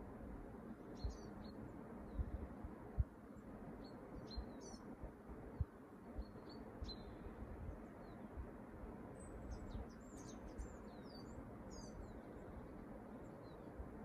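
Faint bird chirps, short high notes scattered through and busiest a little past the middle, over a steady low background rumble with a few soft low knocks.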